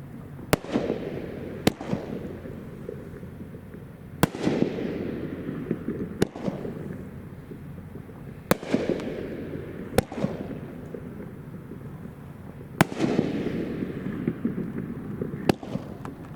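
World Class Fireworks 'Sexy Rider' 2-inch nine-shot consumer cake firing its aerial shells: sharp bangs every one to three seconds, about eight in all, each followed by a rushing tail that fades away.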